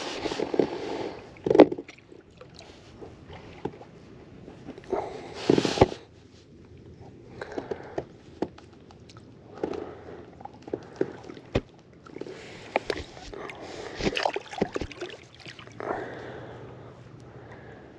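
Water sloshing and splashing around a snook held by the jaw at the waterline while it is revived for release, in irregular bursts as the fish works its gills and kicks its tail, with a few sharp clicks.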